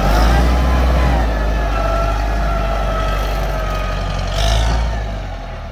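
Kubota tractor's diesel engine running under load with a wavering whine over a steady low rumble, swelling briefly about four and a half seconds in and easing off near the end.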